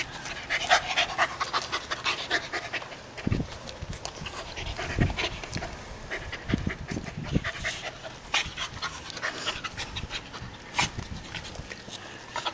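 A dog panting quickly and steadily close by, with a few dull low thumps in the middle.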